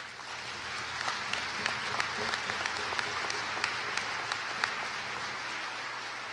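Large audience applauding: a dense, steady patter of many hands clapping with single sharper claps standing out. It swells in over the first second and eases slightly near the end.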